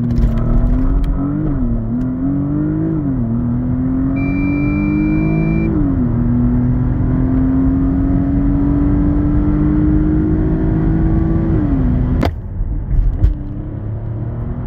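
Porsche Panamera 4S's 2.9-litre twin-turbo V6 with sport exhaust, heard from inside the cabin, launching off a launch-control hold and accelerating flat out, its pitch climbing through each gear and dropping at each upshift. A high electronic beep sounds for about a second and a half around four seconds in. About twelve seconds in the sound cuts to the engine running at lower revs.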